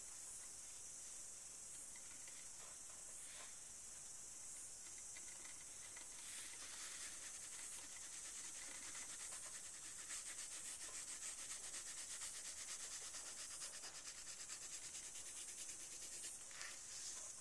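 Faint scratchy rubbing of a white drawing stick shaded back and forth over black paper. The strokes quicken and grow louder about six seconds in, turning into a rapid, even back-and-forth scrubbing.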